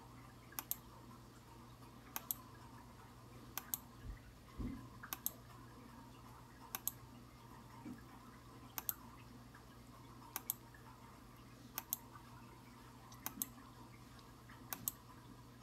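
Sharp double clicks repeating about every one and a half seconds, over a faint steady hum.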